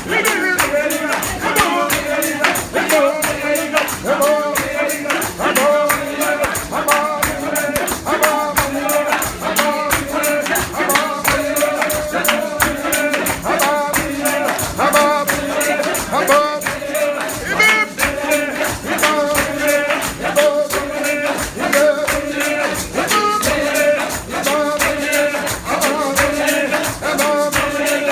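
Group of voices singing a hymn, with a tambourine shaken and struck in a steady, even beat.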